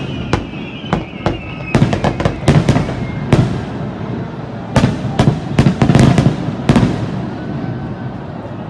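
Aerial firework shells bursting overhead in rapid succession: sharp bangs in two close clusters, dying away near the end. A faint wavering high whistle sounds in the first couple of seconds.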